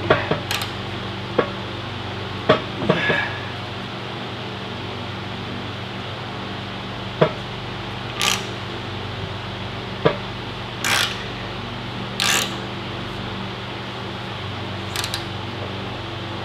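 Dana 60 ring and pinion being turned by hand with a wrench on the pinion yoke, giving sharp metal clicks and short rasps every few seconds as the gears work a shop rag between them to push the differential carrier out of the housing. A steady hum runs underneath.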